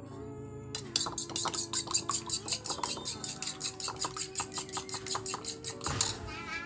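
Utensil beating a mixture in a bowl, rapid clinking strokes about five a second that stop near the end, over background music.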